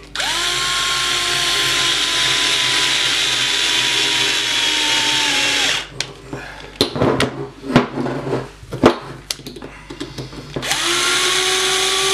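Cordless electric drill driving small screws into an RC car's link mounts. A long run of motor whine, its pitch drooping slowly under load, stops abruptly about halfway through. Then come a few seconds of clicks and knocks as the parts are handled, and the drill starts again near the end.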